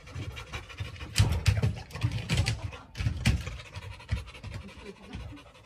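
A dog panting in irregular breaths, with scratching and small rattles of a wire mesh fence as a golden retriever puppy paws at it.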